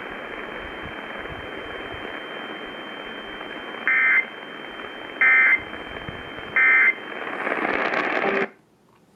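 Over-the-air radio static hiss with a faint high whine. About four seconds in come three short, raspy digital data chirps, each about 1.3 s after the last: the Emergency Alert System end-of-message code that closes the alert. The static cuts off suddenly near the end.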